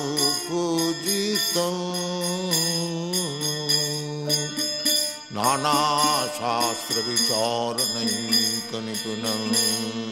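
Sanskrit devotional hymn sung in a chanting style, with long held notes in the middle, over the jingling of small hand cymbals.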